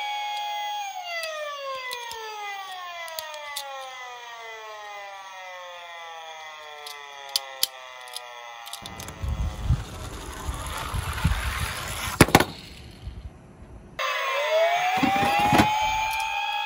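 Police car siren: a held wail that slowly winds down in pitch over several seconds, then rises again near the end. In between there is a noisy rumble with a few sharp clicks.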